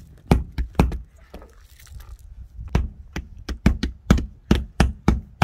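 A string of short, dull knocks, irregular at about two to three a second, as hands pat and press along the top edge of a newly installed car windshield to seat it.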